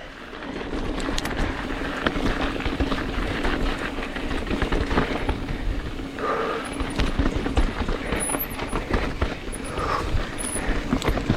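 Mountain bike riding down a rough, rocky trail: tyres rolling over rock and gravel with constant rattling and knocks from the bike, a steady buzz underneath, and wind rumbling on the microphone.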